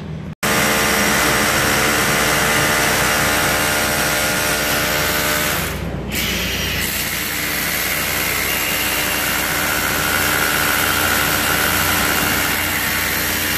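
Handheld electric paddle mixer running steadily at speed, stirring a mix in a plastic bucket, with an even motor whine. It dips briefly about six seconds in.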